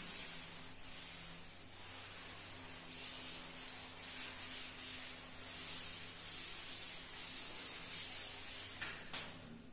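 A cloth duster wiping chalk off a chalkboard in repeated sweeping strokes: a soft rubbing hiss that swells and fades with each stroke. A single short tap near the end.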